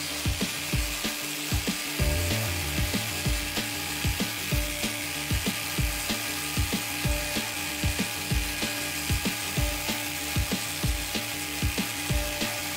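Corded electric drill driving a 3D-printed centrifugal blower attachment, running steadily: a continuous motor whir with a rush of air from the nozzle.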